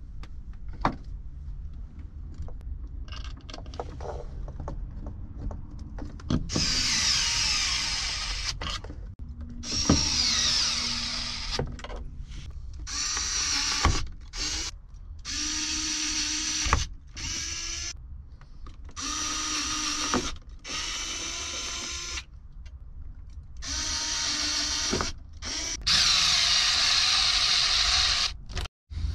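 Power drill with a driver bit driving metal screws through a metal mounting bracket. After about six seconds of quiet handling clicks, it runs in a series of short bursts of one to three seconds each, stopping and starting as each screw goes in.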